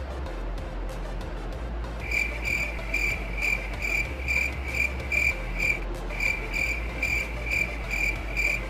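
An insect chirping in a steady rhythm of high chirps, about three a second. The chirping starts about two seconds in and has a short break past the middle.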